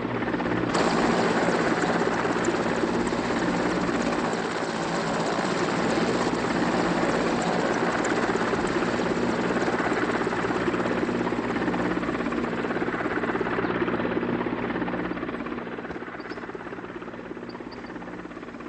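Helicopter engine and rotor noise, steady and loud, fading away over the last few seconds.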